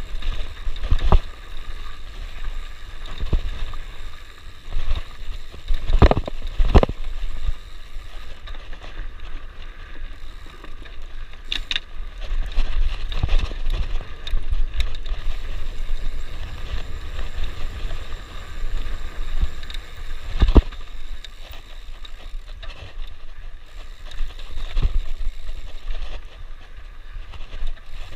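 Mountain bike rolling fast down dirt singletrack: steady tyre rumble and wind buffeting the microphone, with a few sharp knocks as the bike hits bumps.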